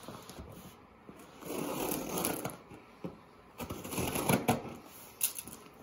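Cardboard box packaging being handled and pried at while trying to get it open: a stretch of rustling about a second and a half in, then a run of sharp scrapes and clicks.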